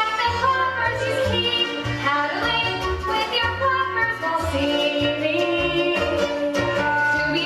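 Musical number from a stage musical: instrumental accompaniment with a bass line moving about twice a second, and voices singing over it.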